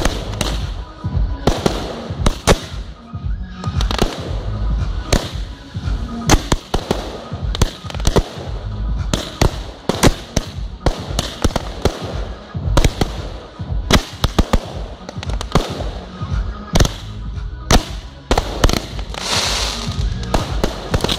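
Fireworks display: aerial shells and comets launching and bursting overhead, a loud, irregular string of bangs, at times several a second.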